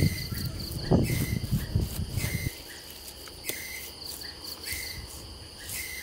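Wet mud being pressed and smoothed by hand makes a low rustling, squelching noise for the first two and a half seconds and then stops. Insects chirp in short repeated calls throughout.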